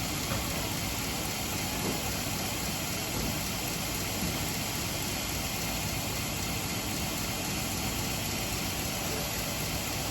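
Belt sharpening machine running steadily, a constant motor and belt noise.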